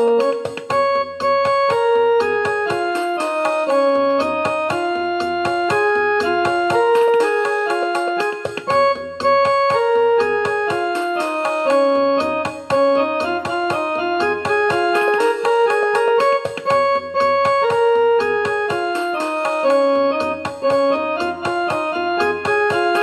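Background music: a piano playing Raag Bhupali, a pentatonic Hindustani raga, in flowing melodic phrases that rise and fall.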